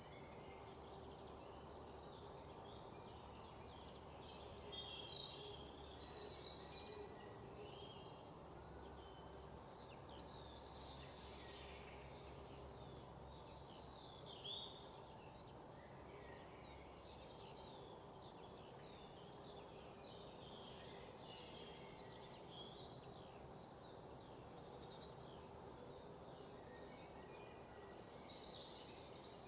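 Forest birds chirping and calling over a steady low background hiss. About four seconds in, a louder rapid trill runs for roughly three seconds.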